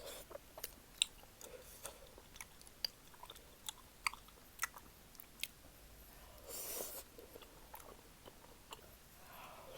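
Close-miked eating of malatang: wet chewing with many sharp little clicks, and a short hissing burst about two-thirds of the way through.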